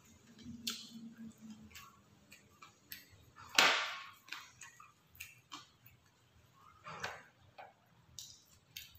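Mukbang eating sounds: chewing and mouth clicks, with bamboo satay skewers clicking against a metal tray. One louder sharp clatter comes about three and a half seconds in, and a smaller one comes near seven seconds.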